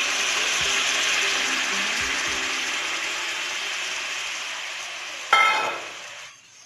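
Vinegar water poured into hot oil and spice gravy in a pan, sizzling with a loud hiss that slowly dies down. A short clink about five seconds in.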